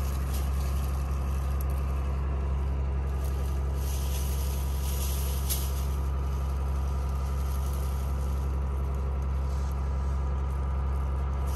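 A steady low drone, like an engine or motor running, holds at an even level throughout. Light rustling of cherry leaves and branches being handled comes and goes over it.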